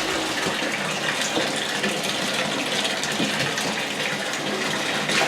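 Water running steadily from a bathtub tap, filling the tub.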